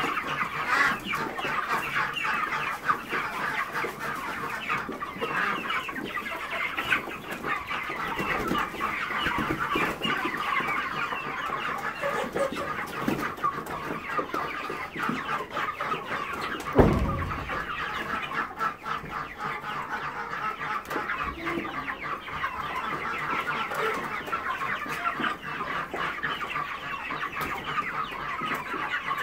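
Flock of white broiler meat chickens calling continuously in a dense chatter while feeding, with scattered short clicks. A single low thump stands out about halfway through.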